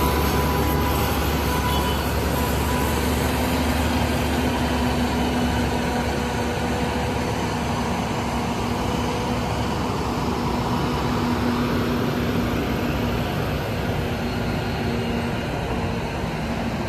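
Heavy truck engine running steadily with a constant drone, amid traffic and street noise.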